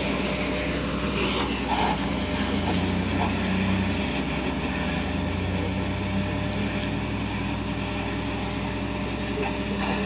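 A vehicle engine running with a steady low hum under an even haze of noise.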